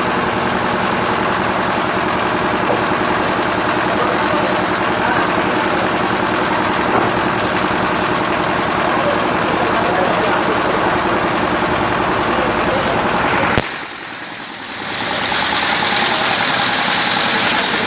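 Paving block machine's motor running steadily. About thirteen and a half seconds in it stops abruptly, and after a short lull a steady higher hiss takes over.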